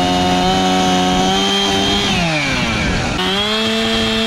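Two-stroke chainsaw held at high revs, the throttle let off about two seconds in so the pitch falls, then opened up again about a second later and let off once more at the end.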